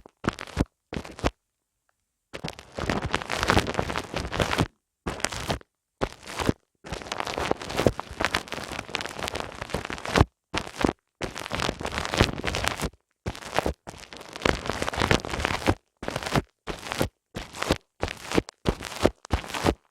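Close-up crackly, scratchy rubbing on a binaural microphone's ears in an ASMR ear massage. It comes as a few short strokes, then a second of silence, then longer stretches of rubbing, each cutting off abruptly.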